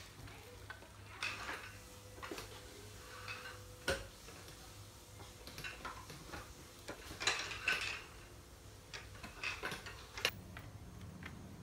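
Wooden slats of a homemade treadmill's slat belt knocking and clattering as the belt and frame are handled, in scattered clicks and short rattles. There is one sharp knock about four seconds in, and the loudest clatter comes a little past halfway.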